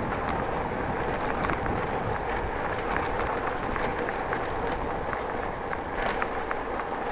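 Steady road and wind noise from a moving bicycle, picked up by an action camera riding along, with frequent small clicks and rattles and a sharper click about six seconds in.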